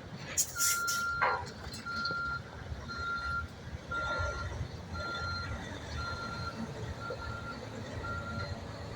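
Reversing alarm of heavy demolition equipment, beeping steadily about once a second over a low rumble of machinery and wind. A loud clatter comes in the first second or so.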